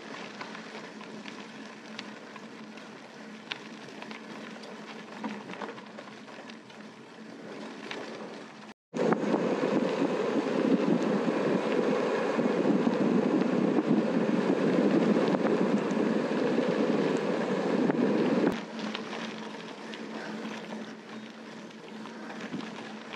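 Riding noise from a moving gravel bike: wind rushing over the microphone. It jumps much louder for about ten seconds after a cut about nine seconds in, then drops back after another cut.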